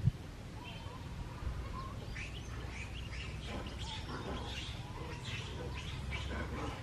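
Many short, high chirping calls overlapping, thickening from about two seconds in, over a steady low rumble.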